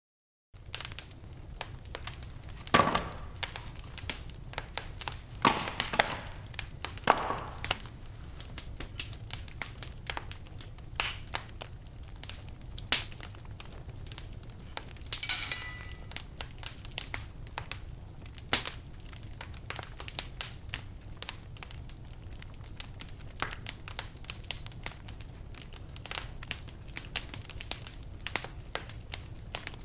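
Wood fire burning in a fireplace, crackling with irregular sharp pops and snaps over a steady low rumble, with a few louder clusters of snaps.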